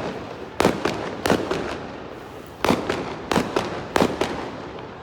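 Fireworks exploding: about seven sharp bangs at uneven spacing, some in quick pairs, each trailing off in a short echo.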